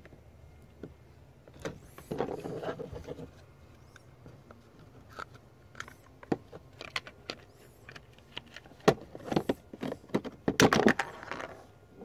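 Hard plastic clicks, knocks and scraping as a Ryobi 18V battery's cell pack is pushed and worked back into its plastic case, a tight fit. Scattered sharp clicks, with a stretch of scraping about two seconds in and a louder, longer stretch of clicking and scraping near the end.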